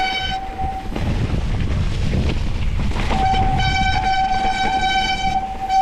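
Mountain bike hydraulic disc brake squealing as it is applied on a wet descent: a loud, steady, single-pitched squeal that stops about a second in and starts again about three seconds in. Under it runs a constant low rush of wind on the microphone and tyres on the gravel trail.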